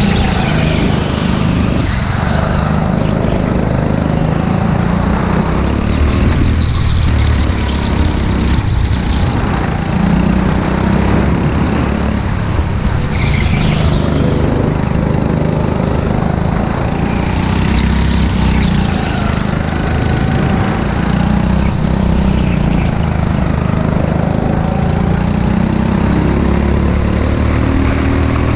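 Go-kart engine heard from on board the kart, running hard for the whole stretch, its pitch rising and falling as the kart accelerates and lifts off through the corners.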